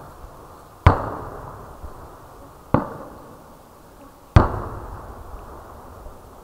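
Three sharp bangs from aerial fireworks, a little under a second in, near the middle and about four and a half seconds in. Each trails off in a rolling echo.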